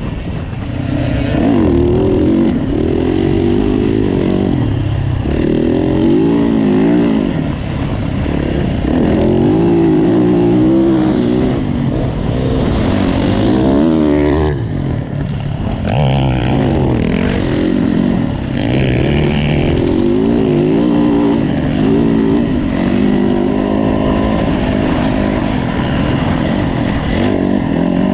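Yamaha dirt bike's engine heard from on board at race speed, revving up and down over and over as the throttle is worked and the gears are shifted.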